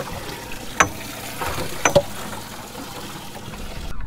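Water trickling and splashing, with two sharp clicks about a second apart.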